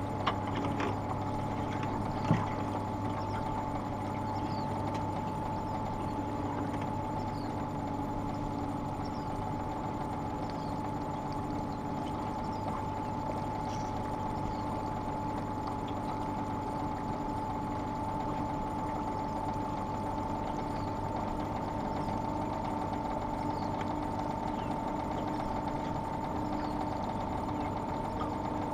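Outboard motor running steadily at trolling speed: a constant hum with a steady high whining tone over it, and a single knock about two seconds in.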